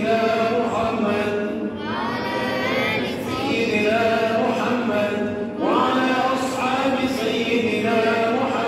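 A man's voice singing an unaccompanied Arabic religious chant into a hand-held microphone: long held notes that slide and turn in ornamented runs, with short breaths between phrases.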